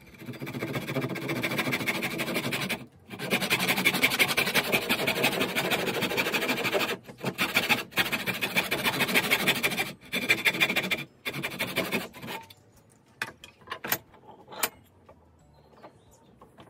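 Fine-toothed hand saw cutting through a wooden stool leg with quick back-and-forth strokes, pausing briefly a few times and stopping about 12 seconds in. A few light knocks follow as the leg is handled.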